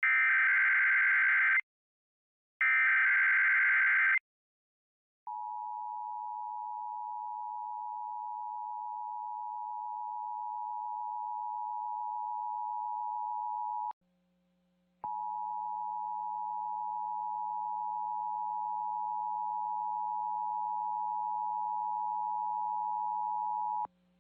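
Emergency Alert System test: the screeching digital SAME header bursts, the last two of three, then the EAS two-tone attention signal, held steady for about nine seconds, breaking off for a second and sounding again for about nine more.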